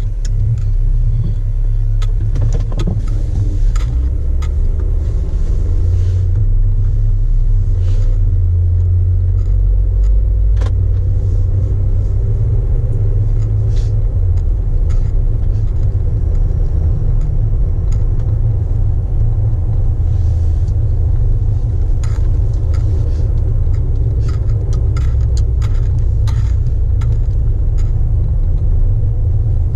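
Jeep Wrangler JK being driven: a steady low rumble of engine and road noise, with scattered faint ticks and rattles.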